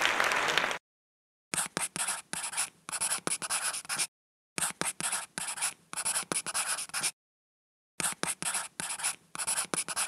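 Pencil writing on paper in quick scratchy strokes, in three runs separated by short pauses. Just before it, the tail end of a crowd laughing cuts off.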